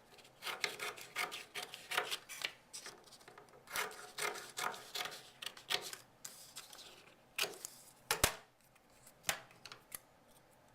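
Scissors cutting, in a run of short cutting strokes over the first few seconds, followed by a few sharp single snips in the second half.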